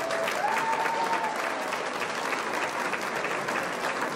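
Crowd applauding: many people clapping steadily, with a short held tone about half a second in.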